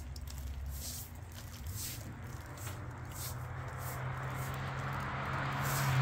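Straw broom swept across a wet concrete porch floor, short swishing strokes about once a second, over a low steady hum that grows louder near the end.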